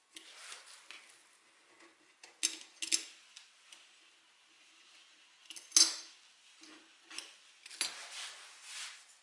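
Small metal objects clinking and scraping, with a few sharp clicks, the loudest about six seconds in.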